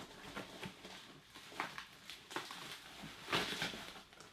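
Cardboard mystery box being handled and opened: scattered rustling and scraping, with a louder rustle about three and a half seconds in.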